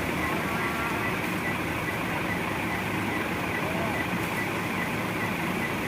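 Steady road traffic noise from vehicles running past, with a low engine rumble throughout and a faint high-pitched tone repeating a few times a second.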